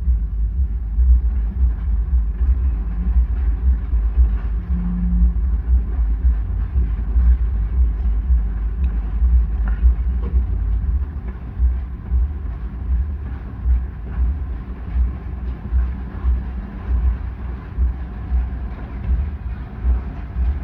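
Distant fireworks going off as a continuous low rumble, muffled by the condo's windows, with no sharp individual bangs standing out.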